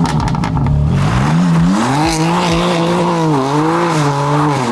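BMW M car's S58 twin-turbo straight-six revving, its pitch climbing and falling several times. A rapid crackle of clicks is heard for about the first second.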